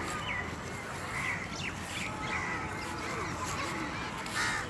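Crows cawing again and again in short calls, over a steady background of surf and distant voices.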